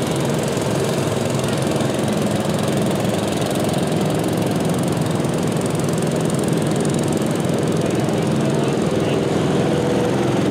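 Small garden tractor engines running steadily, a mix of several machines idling and driving past.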